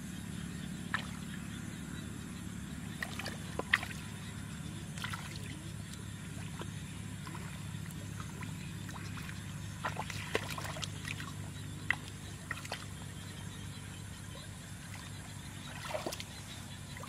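Hands sloshing and splashing in shallow muddy water while groping for fish, with scattered small splashes and drips, over a steady low hum.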